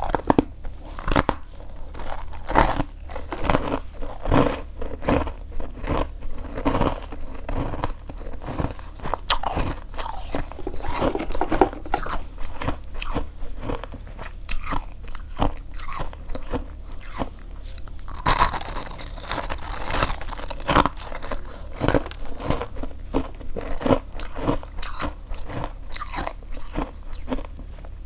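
Close-miked biting and chewing of freezer frost: a steady run of crisp, irregular crunches, with a louder, hissier crunching stretch about two thirds of the way through.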